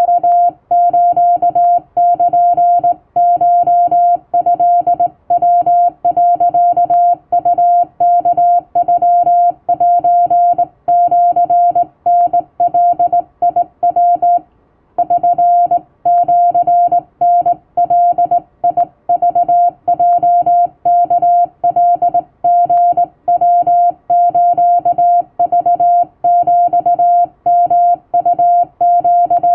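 Hand-sent Japanese (wabun) Morse code: a single mid-pitched tone keyed on and off in a steady stream of dots and dashes, with one short pause about halfway through.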